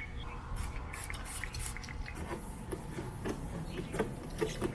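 Liquid sealant being applied and worked onto a plastic headlight lens: a run of short hissy strokes, then scattered soft, wet squishing sounds.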